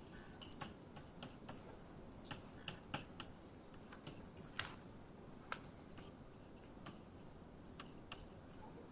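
Chalk writing on a blackboard: irregular light taps and clicks as each stroke of an equation is put down, a few a second at times.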